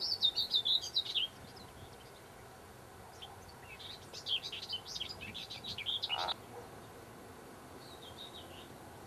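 A songbird singing in quick twittering phrases: a short phrase at the start, a longer one about three seconds in, and a faint short one near the end.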